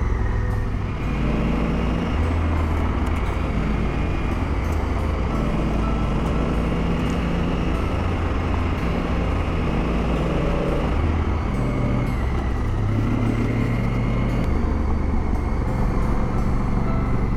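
Honda Africa Twin adventure motorcycle riding along a gravel road: the engine runs steadily, its note shifting up and down with the throttle a few times, over the noise of the tyres and wind.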